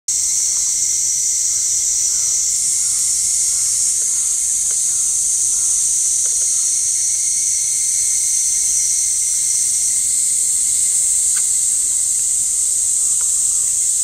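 Steady, high-pitched insect chorus droning without a break, with a few faint short notes lower down near the start.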